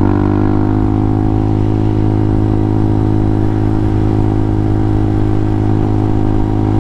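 Hawk 250 dual-sport motorcycle's single-cylinder four-stroke engine running at a steady pitch, dipping slightly just after the start and then holding.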